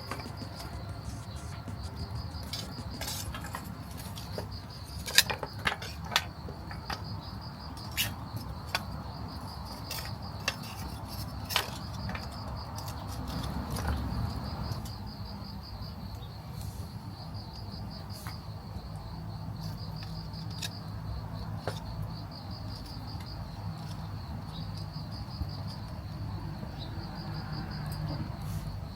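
Insects, crickets by their sound, chirping in a steady pulsing trill throughout, with a handful of sharp clicks and snaps in the first half.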